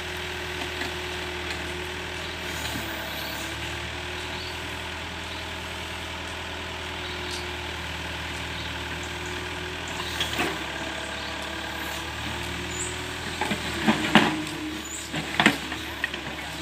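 Sumitomo hydraulic excavator's diesel engine running steadily, with sharp knocks and scrapes about ten seconds in and several more near the end as the bucket digs into soil and rubble.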